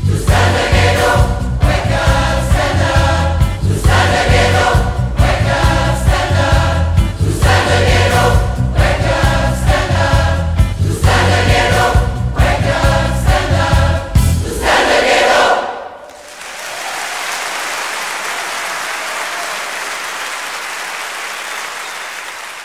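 A mass choir of several hundred voices sings the closing bars of a song with a live band's bass and drums, in short repeated phrases, ending on a held chord about fifteen seconds in. The audience then applauds.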